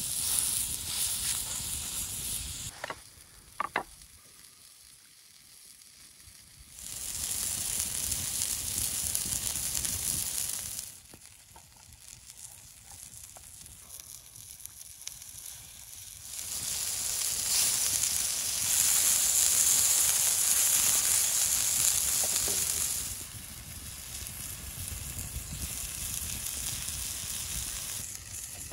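Raw beef patty sizzling on a hot, oiled flat stone heated over a wood fire. The sizzle comes in several stretches of a few seconds each, with quieter gaps between them.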